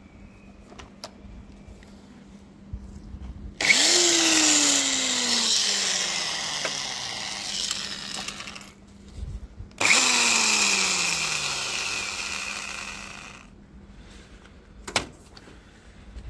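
Old orange corded electric drill run twice, for about five seconds and then about four, its motor whine sinking steadily in pitch through each run. A sharp click follows near the end.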